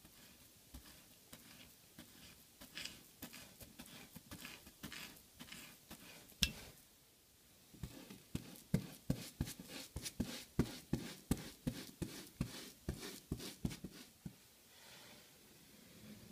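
Bristle paintbrush dabbing and stroking paint onto a cork baseplate: a run of short scratchy strokes, about three a second in the second half, with one sharper click about six seconds in.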